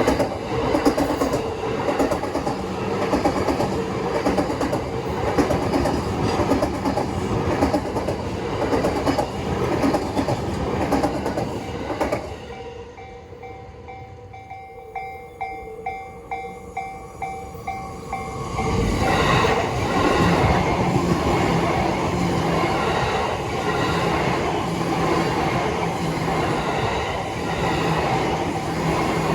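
A JR East E235-series electric commuter train passes close by with clattering wheels for the first twelve seconds or so. As it fades, a level-crossing warning bell is heard ringing about twice a second. Near two-thirds of the way through, another train's wheel noise swells up and covers the bell.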